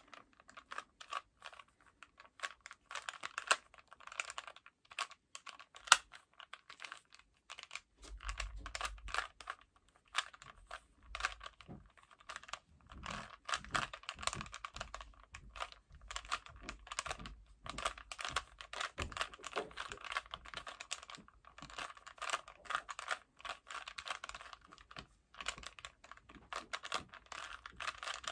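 A 3x3 Rubik's cube being solved by hand: rapid, irregular plastic clicking and clacking as its layers are twisted, in runs broken by short pauses.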